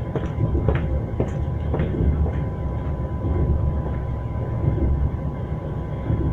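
Train wheels knocking over rail joints over a steady low rumble from the moving train. A quick run of sharp knocks comes in the first two seconds, then mostly rumble.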